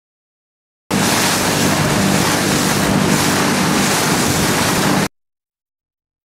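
Wind buffeting the microphone over choppy river water, with a steady low engine hum underneath. It cuts in about a second in and cuts off abruptly about a second before the end.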